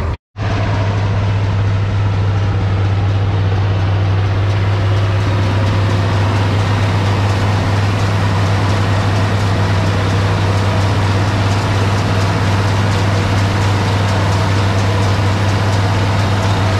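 International 1256 tractor's six-cylinder diesel engine running steadily under load, driving a New Holland 790 forage harvester that is chopping windrowed sorghum-sudangrass and blowing it into a wagon: a constant heavy drone with a loud low hum.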